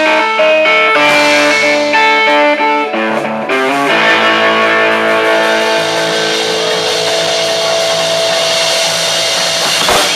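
Live rock band with electric guitars and drum kit playing: a moving guitar line of sustained notes, then one chord held and ringing from about four seconds in until it stops near the end.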